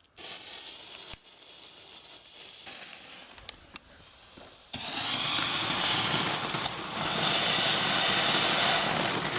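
Two small firework ground fountains (Nico Feuerwerk 'Feuerspucker') spraying sparks with a steady hiss. The first starts just after the opening, the second joins about five seconds in and the hiss gets louder, with a few sharp cracks on top.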